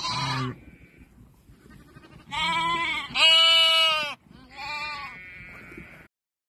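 Young lambs bleating, four high-pitched calls, the loudest a long bleat about three seconds in; these are hungry lambs calling for milk. The sound cuts off suddenly about six seconds in.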